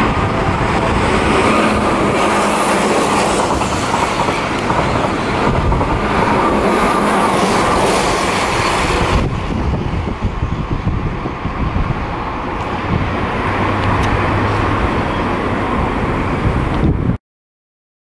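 Keihan 8000-series limited express train passing through a station at speed: a loud, steady rush and rumble of wheels on rail. The sound changes abruptly about nine seconds in and cuts off suddenly about a second before the end.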